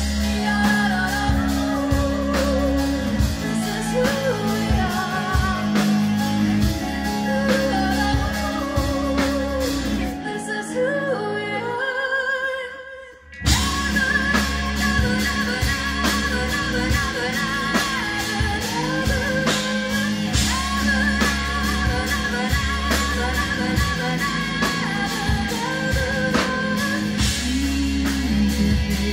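Live rock band with a female lead vocal over electric guitar, bass and drums. About ten seconds in, the bass and drums drop away and the music thins out; just past thirteen seconds the full band comes back in at once.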